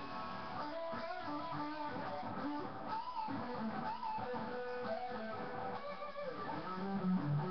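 Electric guitar playing a single-note lead line with bent notes. One note is held for a couple of seconds midway, and the line drops to lower notes near the end.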